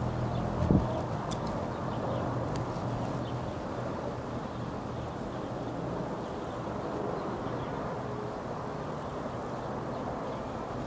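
Steady low rumble of outdoor background noise, with a brief thump just under a second in.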